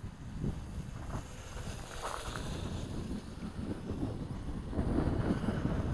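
Wind buffeting the microphone in gusts, a low rumbling rush that rises and falls.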